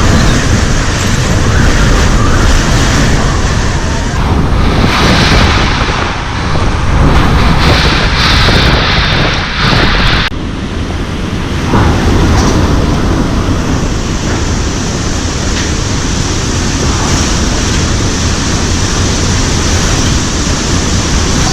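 Severe tropical cyclone wind blowing in strong gusts, a loud rushing that swells and eases with wind buffeting the microphone. The high rushing cuts off suddenly about ten seconds in, and steadier wind noise carries on.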